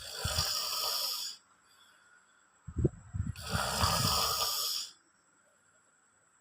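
A man snoring heavily in his sleep, likened to a cow: two snores about three seconds apart, each a low rattling flutter joined by a long breathy hiss.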